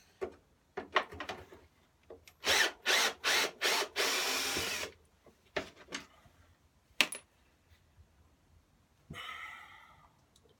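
Power drill-driver with a screw bit, run in four short bursts and then one steady burst of about a second, backing a screw out of a plastic mower cover. A single sharp click comes about two seconds later.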